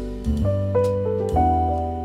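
Background instrumental music: a light tune of sustained chords and notes that shift every half second to a second.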